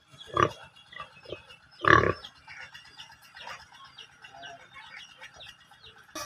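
A pig grunting twice, once about half a second in and again, louder, about two seconds in, with faint short high chirps in between.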